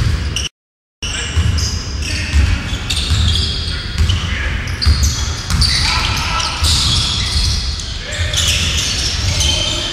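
Live basketball game sound in an echoing gym: the ball bouncing on the court, sneakers squeaking, and voices calling out. The audio drops out completely for about half a second near the start.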